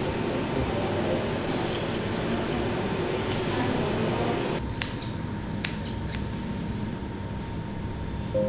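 Steel grooming shears snipping a Lhasa apso's facial hair: short crisp snips in small clusters of two or three. They sound over a steady background hiss that cuts off abruptly a little past halfway.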